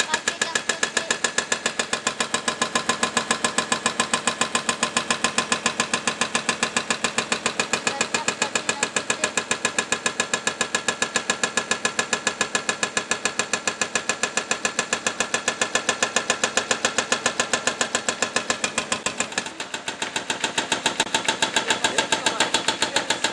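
Hydraulic breaker on a tracked excavator hammering into the stone and fill of a masonry arch bridge's deck, breaking it up. It makes a steady, rapid stream of blows, several a second, with a short break about three-quarters of the way through before the hammering resumes.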